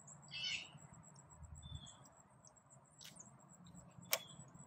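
Quiet outdoor background with a few short, faint bird chirps and two sharp clicks, the louder one near the end.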